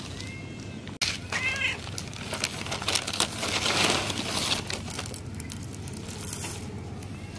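A cat meows twice in the first two seconds, the second call louder, then rustling and crinkling as dry cat food is handled and poured out for it.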